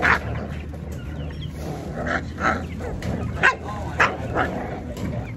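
Dog barking: about six short barks and yips spaced over a few seconds, over a steady low hum.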